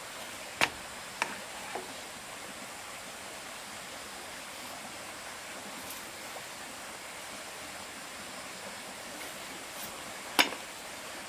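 A few sharp knocks: three in the first two seconds and a louder one about ten seconds in, over a steady faint hiss.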